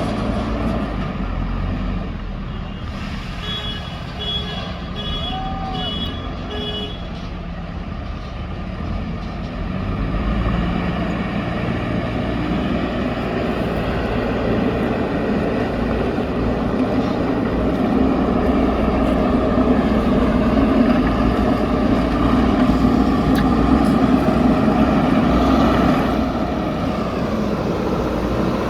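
JCB backhoe loader's diesel engine running under load, getting louder in the second half as the machine works. A few seconds in, a short run of about five evenly spaced reversing-alarm beeps sounds.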